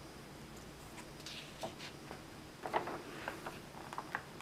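A paper catalogue page being turned by hand and pressed flat: a string of short paper rustles and crinkles, loudest about two and a half seconds in.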